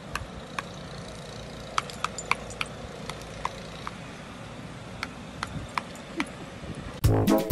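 Scattered light metallic clicks and clinks at irregular intervals over a faint steady background. Music with brass instruments cuts in suddenly near the end.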